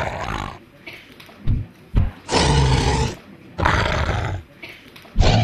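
Dinosaur roars traded back and forth: four rough bursts of about a second each, with two short low thuds between the first and second.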